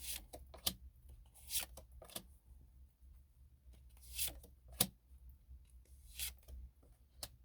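Tarot cards being handled: soft rubbing and sliding with several brief scrapes and light taps, over a faint low hum.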